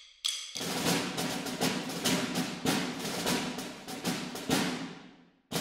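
Closing theme music: a ringing chime-like strike, then a steady percussion beat of drums that fades out near the end, with the beat starting again just after.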